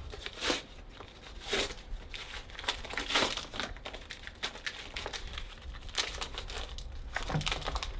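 Plastic packaging crinkling and tearing as it is pulled open by hand, in irregular crackles and rips.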